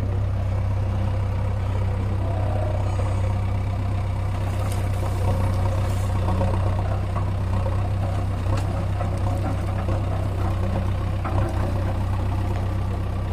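Steady diesel drone of an idling Eicher 551 tractor and a JCB backhoe loader working beside it, with faint scattered rattles as a bucket of soil tips into the tractor's trolley around the middle.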